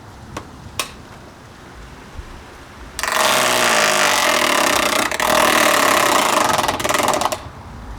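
An SMC table fan's spinning blades are struck and battered during its destruction. After two sharp clicks, a loud, harsh clatter starts about three seconds in, runs for about four seconds and cuts off suddenly.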